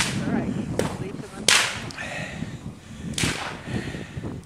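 Fireworks cracking in a burning Christmas tree: sharp reports, with two loud ones about a second and a half and three seconds in, over the steady crackle of the fire.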